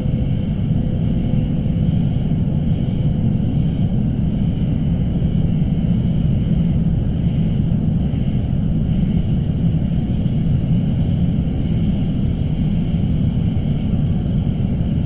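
Suspense ambience: a steady low rumbling drone, with a faint thin high hum and faint short high chirps coming back every few seconds.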